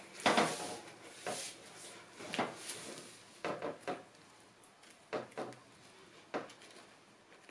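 Flat plastic scraper spreading whipped cream over a cake on a plate: about six short scraping and knocking strokes, roughly a second apart, the first the loudest.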